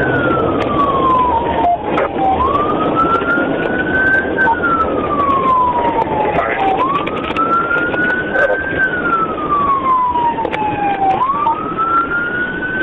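Police car siren in wail mode, its pitch rising and then sliding back down about every four and a half seconds, over steady road and engine noise from the moving cruiser.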